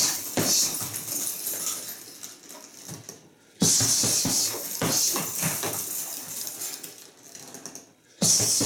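Flurries of wrapped fists striking a leather heavy punching bag in the jab–cross–hook–uppercut–cross combination. A new flurry starts suddenly about three and a half seconds in and again near the end.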